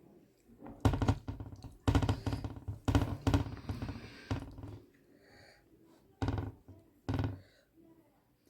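Dull thumps and knocks close to the microphone while eating, in bunches about a second apart, then two short single knocks near the end.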